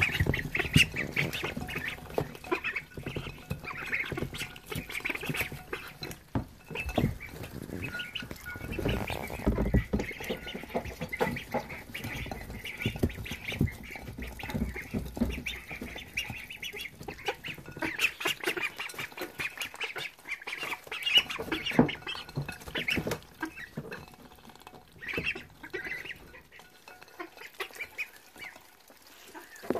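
Silver Appleyard, Welsh Harlequin and Rouen ducklings giving high-pitched peeping calls while they feed on mashed peas, with a dense run of clicks and rustling from their bills dabbling in the glass dish and the wood shavings. The calling and clicking thin out near the end.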